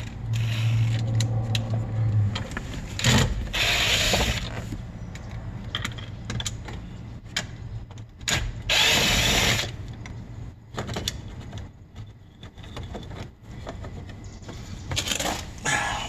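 Cordless drill-driver backing out the screws of a car's interior door handle trim, running in short spurts: a steady low hum for the first couple of seconds, then louder runs of about a second each around four seconds in and again near the middle, and a brief one near the end.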